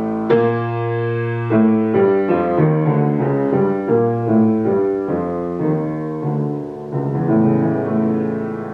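Solo grand piano playing classical music: a loud chord struck just after the start, then a measured sequence of notes and chords, with a chord held near the end.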